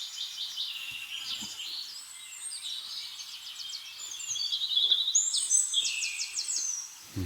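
Several birds calling at once: high chirps, whistled phrases and fast trills overlapping throughout, busiest in the second half.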